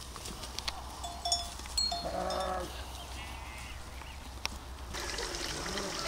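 A sheep bleats once, briefly, about two seconds in, over a steady low hum, with a few faint high chirps just before. Near the end, water trickling starts.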